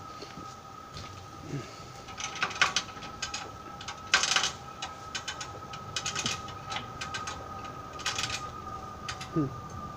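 A hand chain fall (chain hoist) being worked in short bursts of ratcheting clicks, the loudest burst about four seconds in, as it pulls the engine and transmission out of the truck frame.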